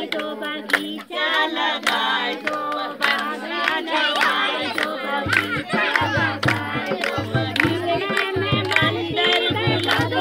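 A group of women singing a Holi song together to steady hand clapping. A low drum beat is missing at first and comes back in about five seconds in.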